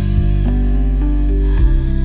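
Instrumental new-age music: a deep pulsing bass under sustained, slowly changing notes, with no vocals.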